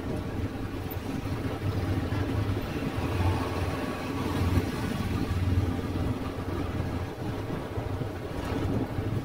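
Street traffic heard from the road while moving with it: motorbike and car engines running with a steady low rumble, and wind noise on the microphone.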